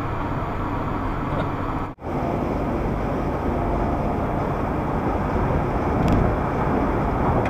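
Steady road and tyre noise of a car driving at speed, heard from inside the cabin through a dashcam microphone. It drops out for a split second about two seconds in, then carries on unchanged.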